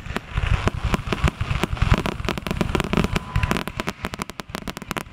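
Fireworks display: aerial shells bursting in a rapid run of booms and crackling reports, the bangs coming faster and closer together in the second half.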